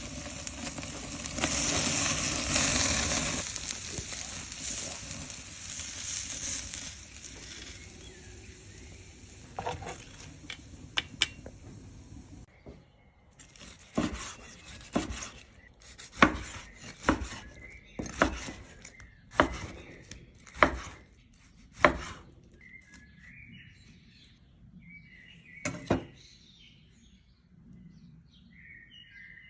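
Meat sizzling loudly for the first dozen seconds, followed by a run of about ten sharp chopping strikes on a cutting board, roughly one a second, and one more a little later. Birds chirp faintly near the end.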